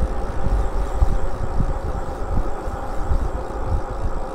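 Wind buffeting the microphone while riding an e-bike along a paved street: a gusty, uneven low rumble with tyre noise, over a faint steady whine.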